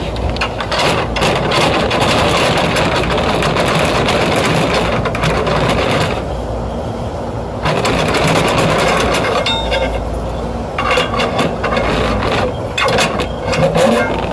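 Aerosol wasp and hornet killer spraying in long hissing bursts, with pauses about six seconds in and again about ten seconds in.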